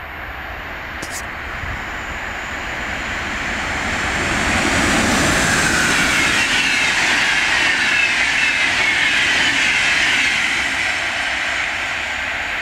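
Sr2 electric locomotive and InterCity double-deck coaches passing at speed: the rush of wheels on rails grows as the train approaches, is loudest for several seconds as it goes by, with a whine that falls in pitch, then fades slightly as it recedes.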